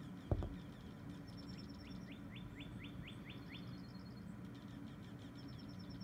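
Songbirds calling: quick high trills in several bouts and a run of about seven quick rising notes, over a steady low hum. A single thump near the start is the loudest sound.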